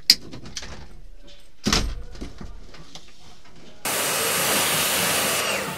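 Pressure washer spray hissing steadily, starting suddenly about four seconds in and lasting about a second and a half, while the race pickup is being foamed and washed. Before it, a sharp click and a thump.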